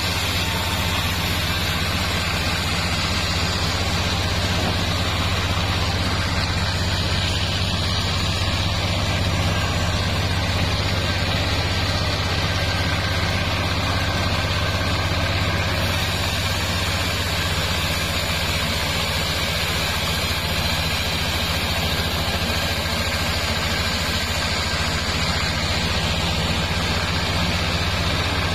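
Vertical bandsaw mill running steadily with a low, constant drone, its band blade cutting sengon wood.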